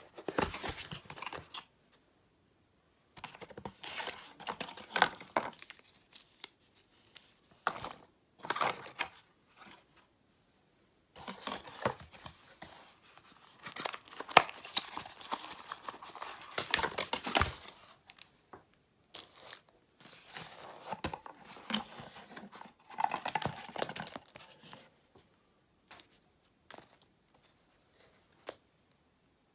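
Packaging being handled by hand: cardboard box flaps and inner tray sliding and scraping, and plastic bags and wrapping crinkling, in irregular bursts with sharp clicks and short pauses between them.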